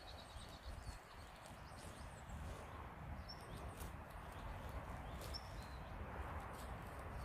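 Faint forest ambience: a low wind rumble on the microphone, a few short high bird chirps about two seconds apart, and light scattered clicks of rustling near the microphone.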